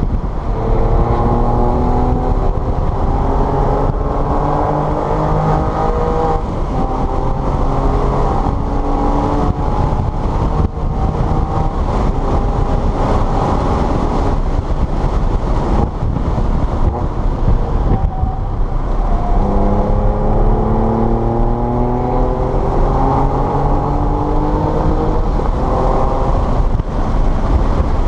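Race-track car engine pulling hard through the gears, its pitch climbing in stepped runs twice: once in the first few seconds and again from about two-thirds of the way in. Between the two runs it settles into a steadier, rougher noise.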